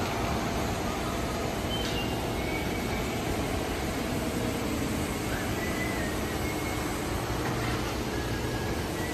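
Steady running noise of machinery with a low rumble, and a few faint short high chirps over it.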